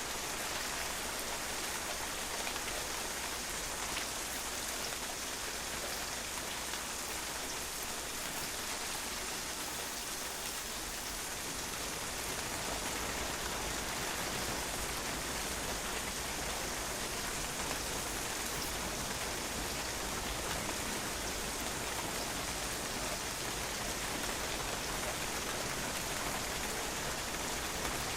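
Steady rain falling and drops pattering on a patio, an even hiss with many fine drop ticks.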